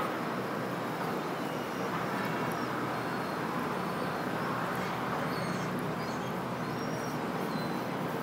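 Steady outdoor street ambience, a constant noisy hum with no single event standing out, with faint high chirps of birds scattered through it.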